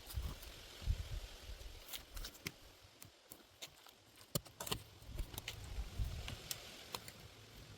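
Scattered small clicks and crackles of soil and potatoes being handled during digging. Low gusts of wind buffet the microphone.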